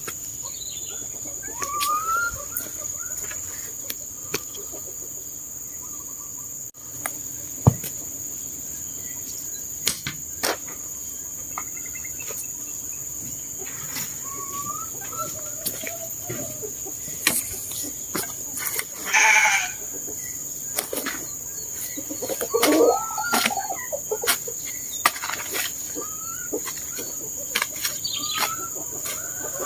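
Sheep bleating, with the two loudest bleats about two-thirds of the way through. Scattered chicken clucks and chirps, and a steady high insect drone, run underneath.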